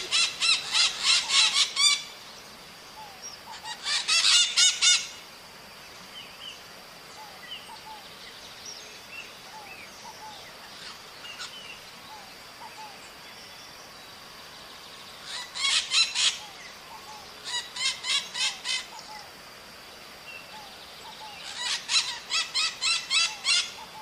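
Maritaca parakeets calling in about five bursts of rapid repeated screeching notes, roughly four a second, each burst lasting one to two seconds. Between the bursts there are faint scattered chirps and a faint steady high tone.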